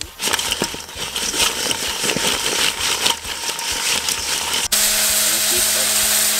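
Whole raw crayfish clattering and rattling against a stainless steel bowl as the bowl is shaken to toss them in seasoning. About four and a half seconds in, this cuts suddenly to a steady sizzle of food frying.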